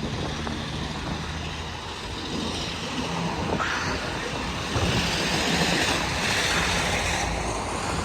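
Ocean surf and wind on the microphone, swelling louder about five seconds in as a wave breaks against the rocks. A vehicle engine hums low underneath.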